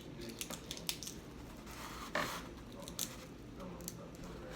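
Faint scattered clicks and crackles of crab shell being cracked and picked apart by hand, with a brief scraping sound about two seconds in.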